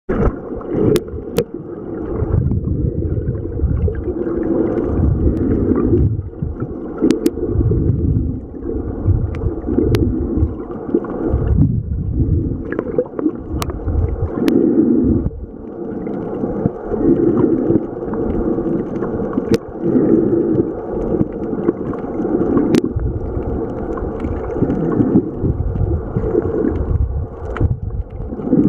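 Muffled water noise picked up by an underwater camera: uneven surges of sloshing and rushing water every second or two, with a few scattered sharp clicks.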